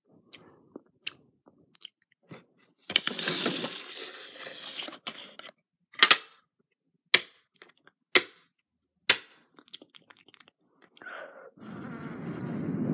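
Close-miked ASMR mouth sounds: small wet clicks and smacks, then a rustling hiss about three seconds in. Four sharp mouth clicks follow about a second apart, and a breathy rush of air comes near the end.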